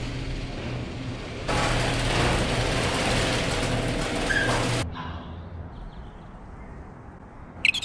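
Sectional garage door being run by its electric opener: a steady motor hum, then a louder rattling as the door moves in its tracks, stopping abruptly about five seconds in. A brief high chirp sounds near the end.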